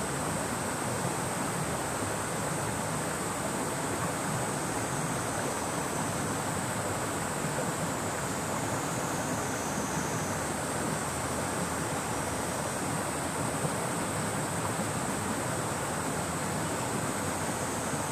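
The Hozu River flowing: a steady rush of moving water. Cicadas sing over it in a continuous high-pitched drone.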